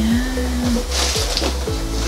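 Background music with a steady beat and sustained tones.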